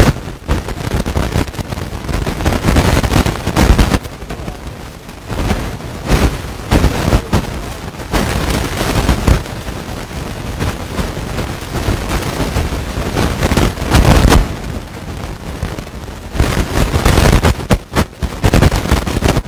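Loud rumbling, crackling audio disruption on the recording, coming in uneven surges and burying a man's voice.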